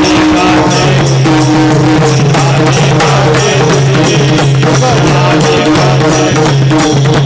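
Devotional kirtan music without singing: held sustained notes over a steady, even beat of hand drum and small cymbals.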